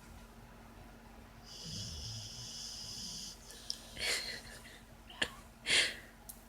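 Sleeping puppy snoring: a long breath with a thin whistle in it about a second and a half in, then two short, noisy snoring breaths, the last one the loudest.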